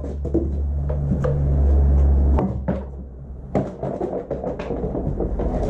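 Scattered knocks and clatter of old plastic motorcycle parts being handled and tossed into a bin, over a low steady rumble that stops about two and a half seconds in.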